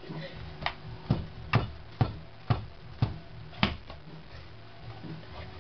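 Hard toy figures knocking together in a staged fight: a run of sharp clicks about two a second that stops a little before four seconds in.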